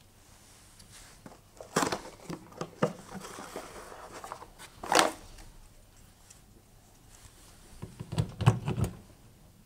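Handling noises as a replacement dishwasher drain pump is taken from its cardboard box and fitted into the dishwasher's base: cardboard rustling and light plastic clicks, one sharp knock about five seconds in, then a quick flurry of plastic knocks and clicks near the end as the pump is pushed onto its mounting.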